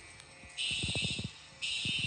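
Fire alarm sounding in repeated high-pitched pulses about a second apart. It is quiet for about half a second, then one pulse sounds and a second starts near the end.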